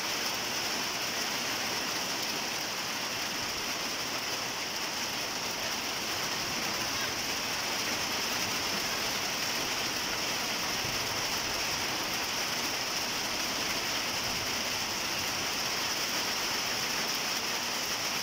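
Steady rain falling through tree foliage: an even, unbroken hiss.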